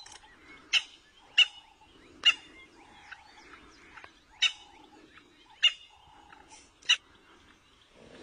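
Short, sharp animal calls ring out six times at uneven intervals, over fainter chirping.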